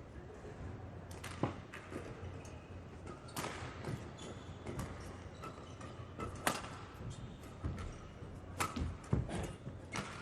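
Badminton rackets striking a shuttlecock in a rally: sharp, single hits spaced irregularly about one to two seconds apart over a steady hall background.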